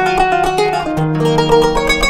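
Kanun, the Turkish plucked zither, playing a melody of quick plucked notes that change pitch several times a second.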